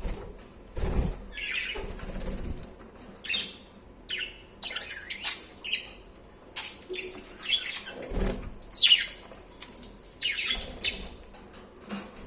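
Budgerigars chirping and chattering in many short, high squeaks and tweets, with a low thump twice.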